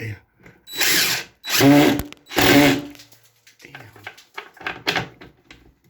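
Cordless screw gun driving a screw up through drywall into wood backing in three short, loud bursts, then a few weaker, shorter runs. The screw is hard to sink all the way: "I can't even turn those in."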